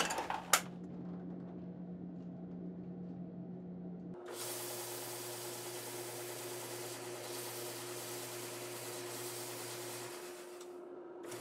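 Faint electrical hum, then about four seconds in a drill press with a disc-sander attachment starts running: a steady hiss over a low hum while a small piece is held against the sanding disc.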